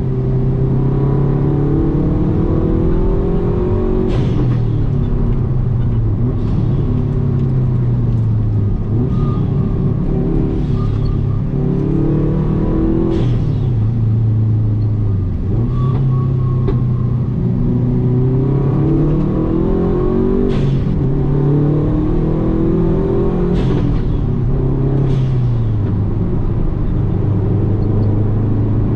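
Subaru WRX's turbocharged flat-four engine under hard acceleration on a race track. The revs climb for several seconds, then drop sharply at each gear change, about four times, each change marked by a short sharp crack.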